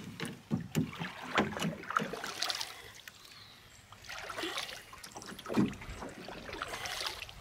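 Wooden paddle strokes beside a cedar strip canoe: irregular splashes and swishes of water with short knocks, coming in clusters, the loudest about three-quarters of the way through.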